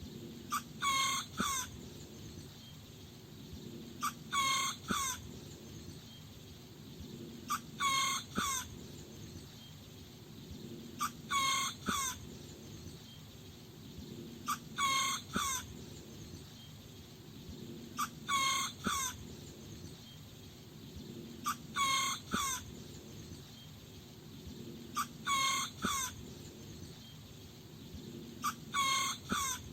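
A small rooster crowing about nine times, a short, high-pitched crow of several notes roughly every three and a half seconds.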